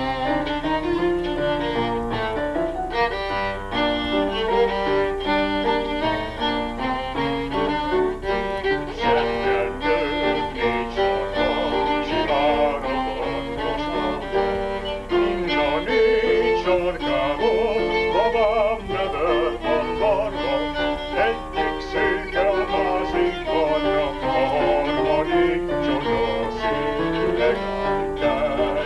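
Violin playing a Hungarian folk-song (magyar nóta) melody with lively, quick-changing notes and vibrato, accompanied by a keyboard.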